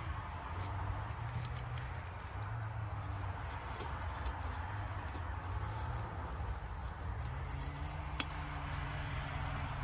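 Masking tape being peeled off a gold-leafed metal plate: quiet, irregular crackling and ticking, with one sharper click about eight seconds in, over a steady low hum.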